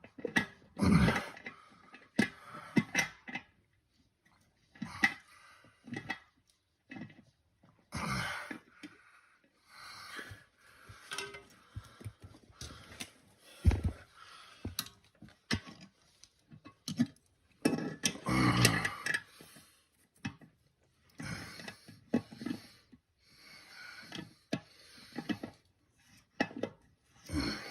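Irregular clicks, knocks and scrapes of hand work on a toilet's tank-to-bowl bolts and the porcelain tank as it is tightened with pliers and adjusted, with a longer scraping bout about two-thirds through.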